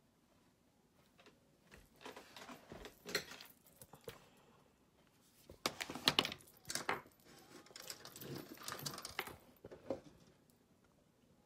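Rustling and light clattering of items being handled close to the microphone, in irregular bursts starting about two seconds in and loudest around the middle.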